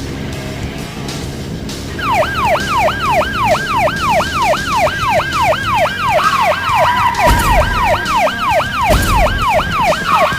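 Police siren sound effect, fast falling sweeps repeating about three times a second, coming in about two seconds in over a low engine rumble. Partway through a steady tone joins it, and two short bursts of noise break in.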